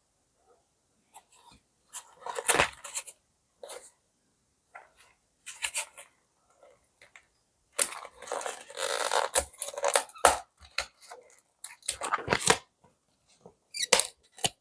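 Toy packaging being handled and torn open: irregular bursts of tearing and crinkling with sharp clicks, the longest tearing stretch about halfway through.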